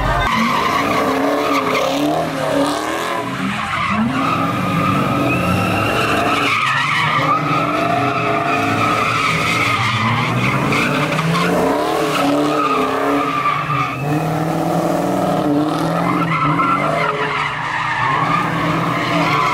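Dodge Charger doing donuts: the engine revs up and down over and over while the rear tyres squeal continuously against the pavement.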